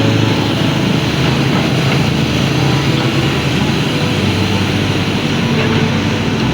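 An engine running steadily: a low hum under a dense wash of noise.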